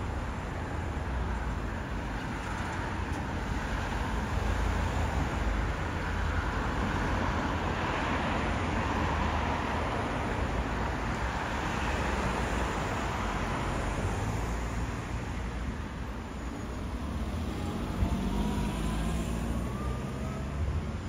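Road traffic: a steady low rumble of cars, with one vehicle swelling past about eight to ten seconds in. Near the end an engine note rises as a vehicle pulls away, and there is a single sharp click just before.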